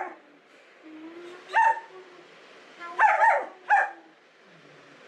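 Six-month-old German Shepherd puppy barking in short single play barks, one at the start and one about a second and a half in, then a quick run of three about three to four seconds in.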